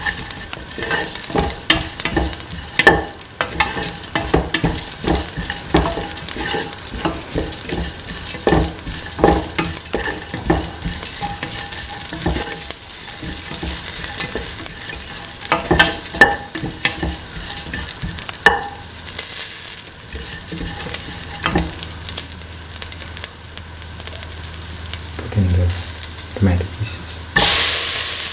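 Sliced onions frying in oil in a stainless steel pan, sizzling while a spatula stirs and scrapes with frequent sharp clicks against the metal. The clicks thin out after a while, and near the end a couple of soft thumps are followed by a sudden, much louder sizzle as tomato pieces go into the hot oil.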